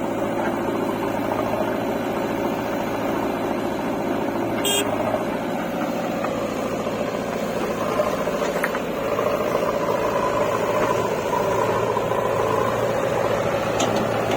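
JCB 3DX backhoe loader's diesel engine running steadily under work, with a sharp click about five seconds in and a knock about eight seconds in.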